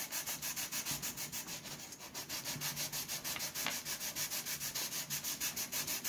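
Sandpaper rubbed back and forth on balsa wood in quick, even strokes, about five a second, lightly sanding the tail ends of a model glider's balsa fuselage to give more surface area for gluing.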